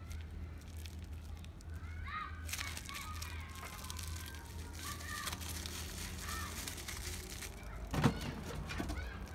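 Packaging being handled, with crinkling and small clicks over a steady low hum. One louder knock comes about eight seconds in, and faint high chirps sound in the background.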